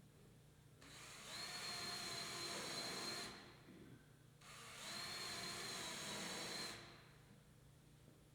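Power drill driving screws in two runs of about two and a half seconds each. Each run has a high whine that rises as the motor spins up, then holds steady.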